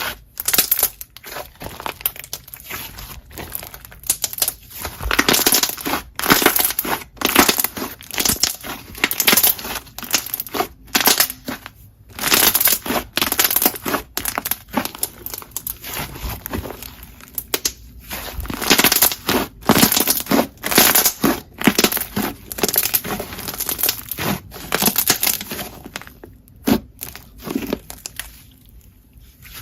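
Jelly slime being squeezed, pressed and poked by hand, giving a constant irregular stream of wet crackling squishes with a couple of short pauses.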